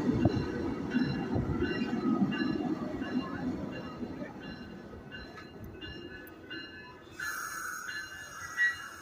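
Amtrak passenger train with Siemens Venture cars pulling into the station and slowing, its wheels and brakes squealing in several steady high tones over a rumble that fades as it slows. About seven seconds in, a hiss with a higher squeal sets in.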